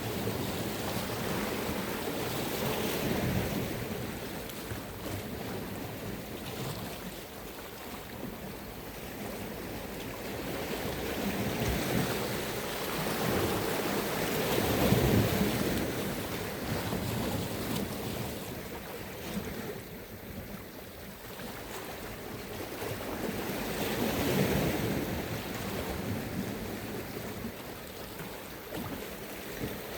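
Sea waves washing onto the shore, swelling and fading in slow surges every several seconds, the biggest about halfway through.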